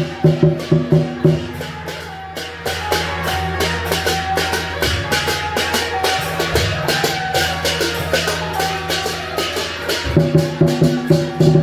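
Temple-procession percussion: drum strokes beating about four a second, then about two seconds in a denser stretch of crashing strokes over a steady low hum, with the drum beat coming back near the end.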